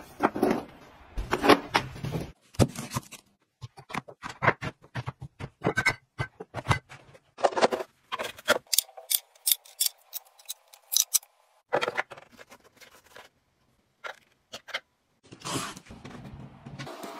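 Quick clicks, taps and scrapes of hard plastic gadgets being handled, pressed and snapped into place, coming in short bursts with silent gaps between. About halfway through, a faint steady hum sits under the clicks for roughly three seconds.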